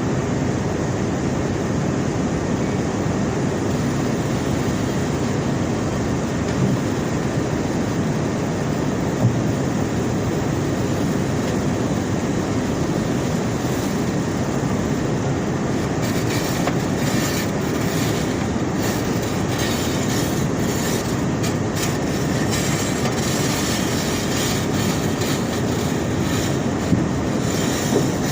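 Conveyor belt carrying rock: a steady rumble of the belt and rollers, with rock clattering and crackling more densely from about halfway through and an occasional knock.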